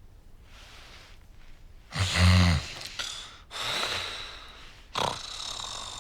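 A woman snoring in her sleep: soft breaths, then a loud, low rattling snort about two seconds in, followed by a long breathy exhale and another snort near the end.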